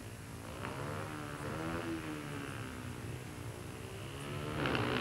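Speedway motorcycle's 500 cc single-cylinder engine running at low revs, its pitch rising and falling unevenly and getting louder near the end.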